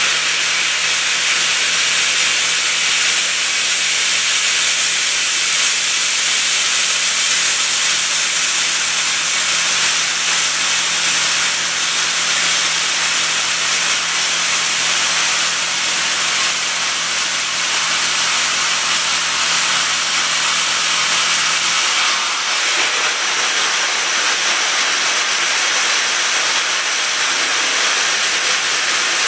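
Machining centre cutting a V-groove in a metal block with a NACHI starting drill: a steady, even hiss of the spinning tool and cut, with no rhythm. A faint low hum under it drops away about 22 seconds in.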